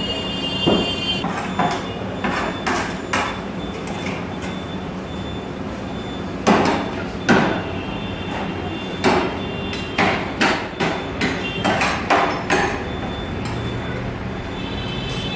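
Steel ladle and tongs clanking against a steel tray, in irregular sharp metallic clacks that come in clusters over steady background noise.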